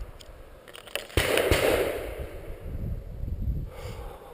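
A quick string of sharp gunshots on a shooting range about a second in, followed by a louder rushing noise that fades over the next second or so.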